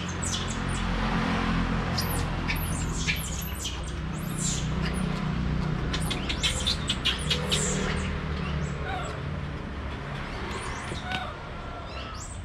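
Small birds chirping in quick, short, high notes again and again, over a low steady hum.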